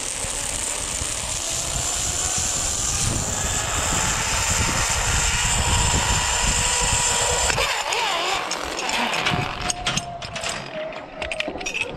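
Zipline trolley pulleys running along a steel cable with a steady whir and wind rushing on the microphone. About eight seconds in the rush drops away as the trolley slows into the landing platform, with clicks and rattles of the trolley and gear.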